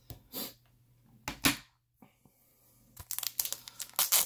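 Packaging being handled: two short rustles in the first second and a half, then a dense run of crinkling and tearing from about three seconds in.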